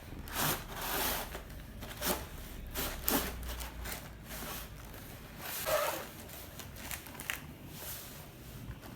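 A toy set's packaging being worked open by hand: irregular rubbing, scraping and tearing, with sharper strokes about half a second, two, three and nearly six seconds in.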